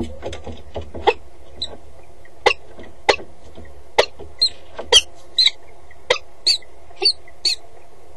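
Peregrine falcon moving about on the metal grating of a nest box: a string of sharp clicks and knocks, joined from about four seconds in by several short, high squeaky notes.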